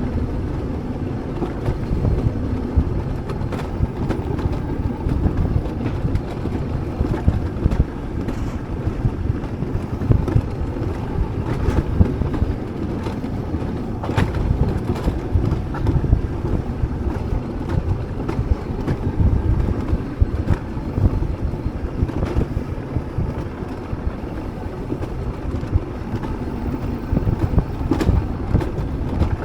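Wind buffeting the microphone over a steady low rumble from a moving vehicle, with scattered clicks and rattles throughout.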